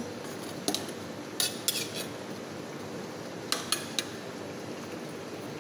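Metal ladle clinking against a pot while stirring boiling chicken broth with potatoes and carrots: about five sharp clinks over a steady low hiss.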